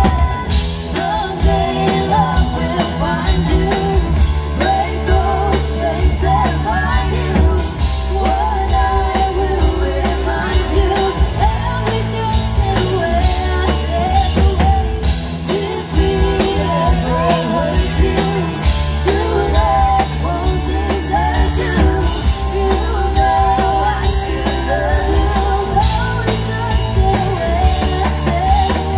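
A live rock band playing a song: women singing lead over electric guitars, bass guitar and drums, amplified through a PA system.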